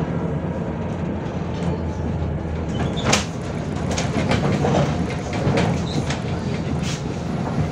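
Interior of a MAZ 105.065 articulated city bus under way: a steady low engine and drivetrain drone, with the body and fittings rattling and clicking. Sharper knocks come about three seconds in and again near the end.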